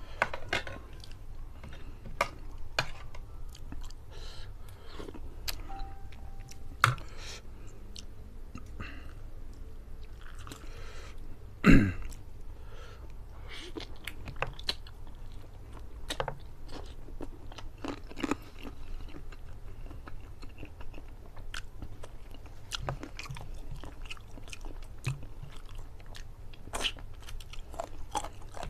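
Close-miked mukbang eating of whole curry chicken by hand: wet chewing, biting and crunching of the meat, with one loud thump about twelve seconds in.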